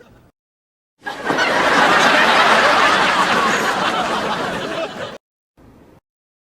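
Sitcom laugh track: a studio audience bursts into laughter about a second in, holds for around four seconds and cuts off, with dead silence before and after.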